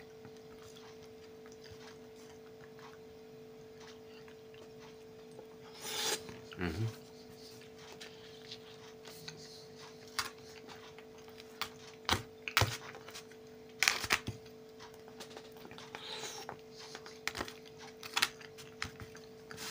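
Eating sounds: a metal fork clicking and scraping in a plastic container of beet salad, with scattered sharp clicks and chewing, over a steady hum. A brief vocal sound about six seconds in.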